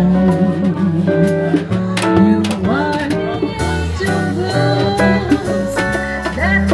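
A band playing jazz-blues music, with guitar to the fore over a steady bass line.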